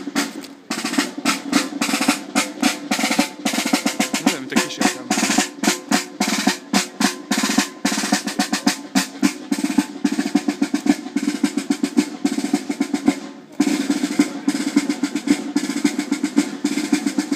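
Military snare drum beaten in a steady marching cadence with rolls, breaking off briefly twice: about half a second in and again near the three-quarter mark.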